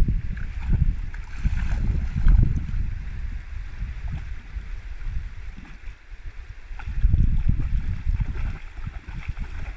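River water sloshing and gurgling around a small boat, with uneven low rumbling surges near the start and again about seven seconds in.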